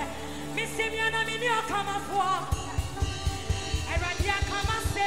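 Live gospel worship music: a singer's voice over a band, with a quick, steady drum beat coming in about halfway through.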